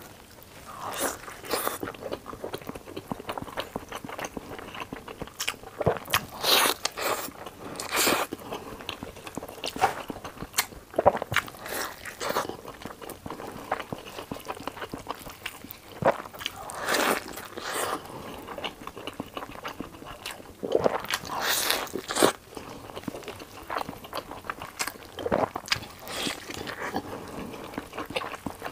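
Close-miked eating: biting into and chewing a battered green pepper stuffed with beef, in irregular bites and chews.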